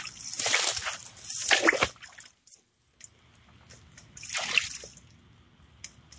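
Water splashing and pouring over a skinned groundhog carcass on a wooden cutting board as it is rinsed by hand: splashing for the first two seconds, then a second shorter pour from a plastic bowl about four seconds in.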